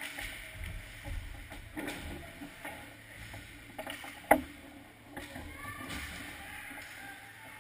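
Ice hockey play in front of the goal: skate blades scraping the ice and sticks clicking, with one loud, sharp knock with a brief ring about four seconds in.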